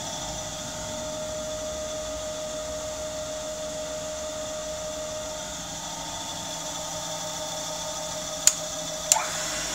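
Jones & Shipman 540AP surface grinder running with a steady hum and whine from its motor and spinning wheel. Near the end come two sharp clicks as the two-speed main motor's selector switch is turned, followed by a short rising tone.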